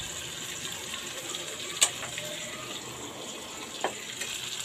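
Chicken pieces sizzling in hot oil in a steel kadai, a steady hiss, with three sharp knocks about two seconds apart.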